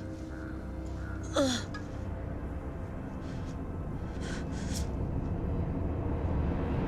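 A person's short, sharp gasp or cry, falling in pitch, about a second and a half in, followed by two brief hissing sounds, over a steady low hum.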